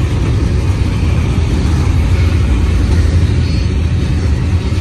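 Double-stack intermodal train's well cars rolling past close by: a loud, steady rumble of steel wheels on rail.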